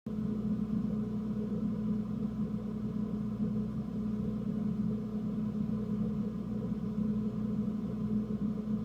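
A motor running steadily, a constant-pitched hum that does not change.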